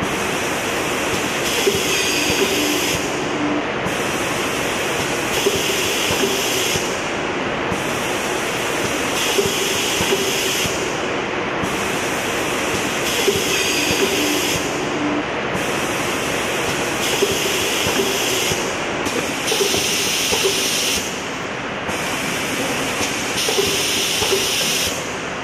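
Fully automatic foil transfer machine for cylindrical containers running continuously with a steady hiss. A loading-printing-ejecting cycle brings a brighter burst of hiss about every three and a half seconds.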